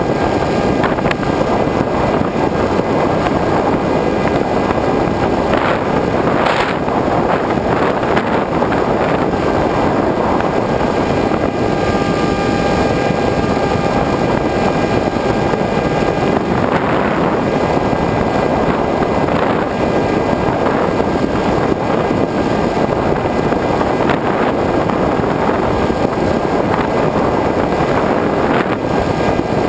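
Steady rush of air over the onboard camera of a Multiplex Easystar RC plane in flight. The thin whine of its brushless electric motor and propeller sits above the rush, clearest in the middle of the stretch.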